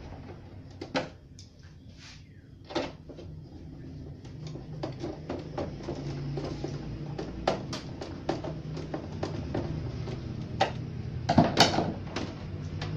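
Screwdriver prying at the plastic back cover of an old Sony CRT television: a series of irregular clicks and knocks, with a louder cluster of knocks about eleven seconds in.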